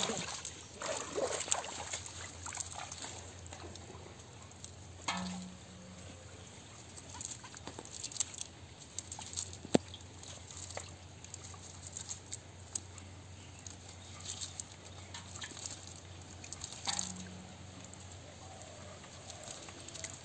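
A wet cast net being handled, with small fish being picked out of it on mud: scattered soft pats, rustles and clicks, and a few sharper knocks.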